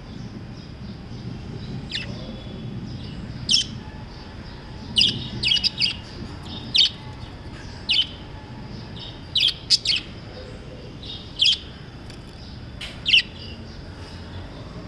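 Pet budgerigars chirping: about a dozen short, sharp high chirps, some falling in pitch and some in quick clusters, over softer continuous twittering and a steady low background hum.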